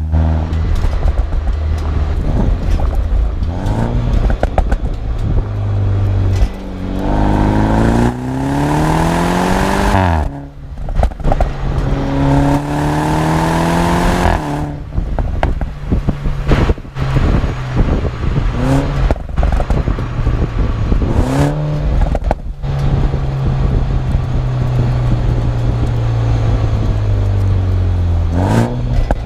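BMW 125i's turbocharged B48 four-cylinder through a full M140i cat-back exhaust, revving up hard several times with the pitch climbing and dropping sharply at each gear change. Off the throttle it gives short pops and crackles, first about ten seconds in and then several more through the middle stretch, while the engine holds steadier revs.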